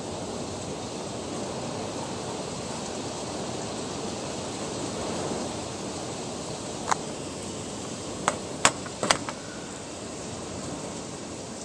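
Steady hiss of heavy rain and wind during a thunderstorm. Four or five short, sharp clicks come between about seven and nine seconds in.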